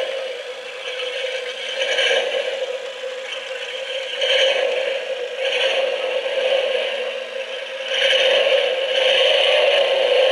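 Battery-powered clear-plastic 1/3-scale Ford 289 V8 model engine running, its small electric motor whirring as the plastic crank, pistons and valve train turn with a steady scraping rattle that swells now and then and grows louder about eight seconds in.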